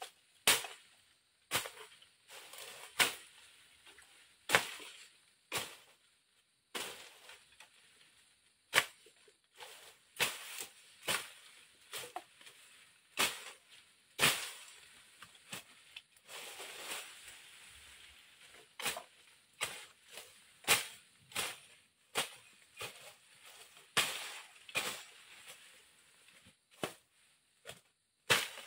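Machete (bolo) chops slicing through grass and leafy stems as undergrowth is cleared by hand: sharp cuts at an uneven pace of roughly one a second, with rustling of the cut vegetation between them.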